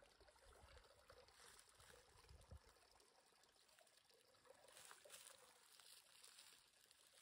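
Faint trickle of spring water, barely above silence.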